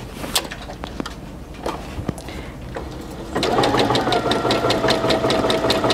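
A few light handling clicks, then about three and a half seconds in the Brother A150 computerized sewing machine starts sewing a three-step zigzag stitch: a steady motor whine with rapid, even needle ticking.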